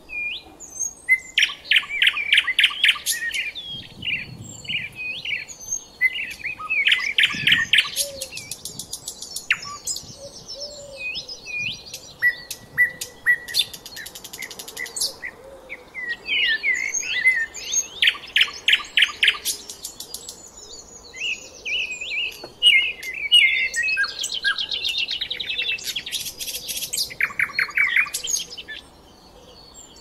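Small songbirds singing in bursts of rapid twittering and fast trills, each phrase a few seconds long, with scattered single chirps between phrases.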